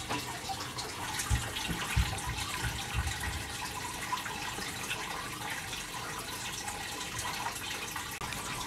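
Steady trickle of running water, with a few soft low thumps in the first few seconds.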